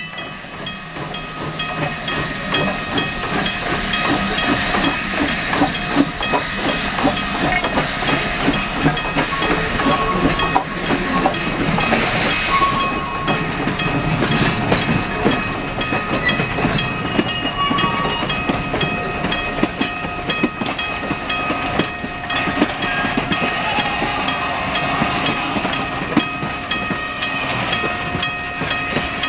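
Steam train passing close by: the locomotive's exhaust and running gear swell up over the first few seconds, then the passenger coaches roll past with wheels clicking and knocking over the rail joints, with a short hiss of steam about twelve seconds in. A crossing signal's bell rings steadily throughout.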